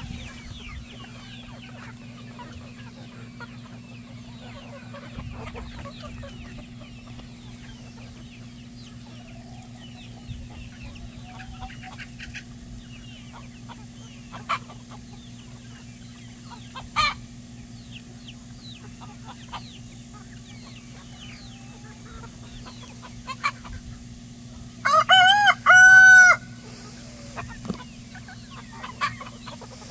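A flock of chickens clucking and cheeping throughout, with a rooster crowing loudly a few seconds before the end.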